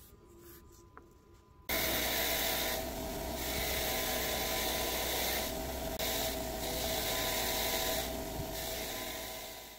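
Bench grinder with the threaded steel part of a tap reseating tool held against its spinning wheel: a steady grinding hiss over the motor's hum. It starts suddenly about two seconds in, swells and eases a few times as the part is pressed and turned, and fades near the end.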